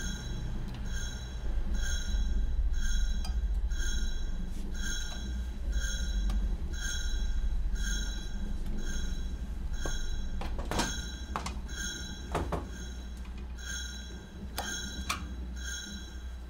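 Horror-film sound design: a soft, high, bell-like tone repeating about twice a second over a steady deep drone. A few sharp clinks come in the second half.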